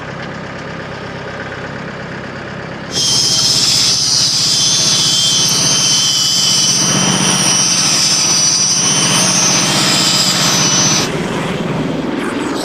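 Small gas engine of a portable band sawmill running steadily, then about three seconds in the blade starts through a red oak log. A loud, steady high whine and louder engine running under load last about eight seconds, then cut off.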